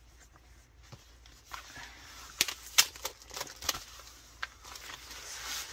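Craft kit packaging and paper contents being handled. It is quiet for the first second and a half, then come scattered clicks and light rustling, with two sharp clicks near the middle the loudest.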